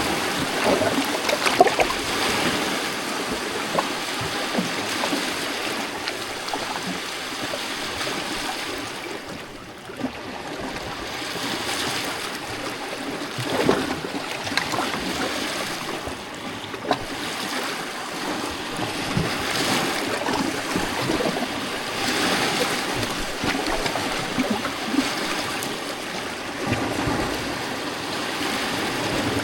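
Small lake waves lapping and splashing against rocks at the shore, a continuous wash that swells and eases every few seconds, with a brief lull about ten seconds in.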